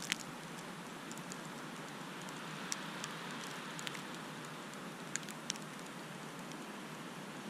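Steady hiss of wind-driven heavy snowfall, with a handful of sharp ticks as snowflakes strike the camera.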